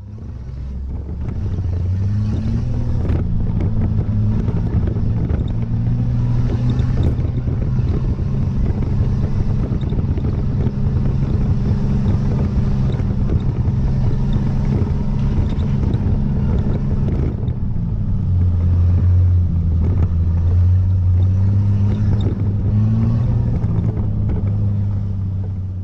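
Off-road 4x4's engine running in low gear on a rough dirt track, heard from inside the cabin, with knocks and rattles from the bumps. Its note rises about two seconds in, drops lower about two thirds of the way through, then climbs again near the end.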